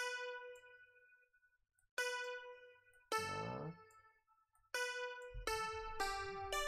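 Melody of single notes played back from a software keyboard instrument with an electric-piano-like tone, each note struck and then fading. The notes come about a second apart at first and faster near the end.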